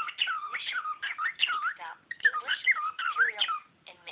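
Cockatiel chattering in quick whistled swoops that rise and fall, in two bursts of about two seconds each.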